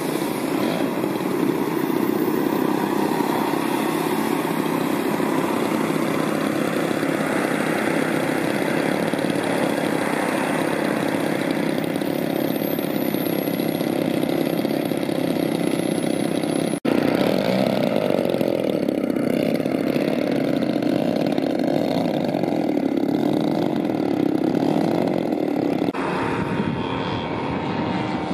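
Engines of a large radio-controlled scale model of a Fokker F.VIIb/3m trimotor running steadily. The sound breaks off briefly about 17 seconds in and changes near the end, when the model is in flight.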